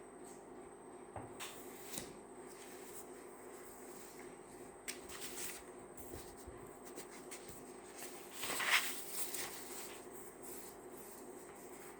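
Paper rustling and pen-on-paper handling at a desk, with a few small taps and scratches and a louder rustle of paper about two-thirds of the way through. Underneath runs a steady electric fan hum and a thin, steady cricket trill.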